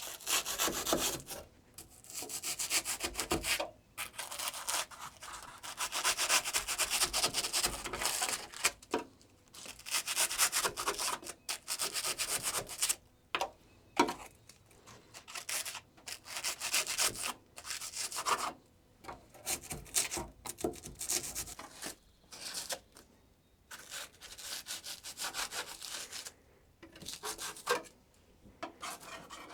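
Hand scraping and rubbing in irregular strokes, each about one to two seconds long with short pauses between. High spots are being trimmed down so that a board sits flush against the wall channel.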